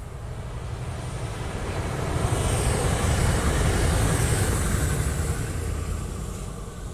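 Electric passenger train passing on the line, its rumble swelling to a peak a few seconds in and then fading, with a faint high whine over it.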